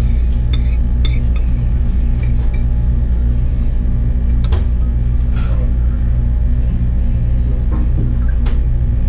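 Metal cutlery clinking against a plate about ten times as someone eats, over a steady low hum.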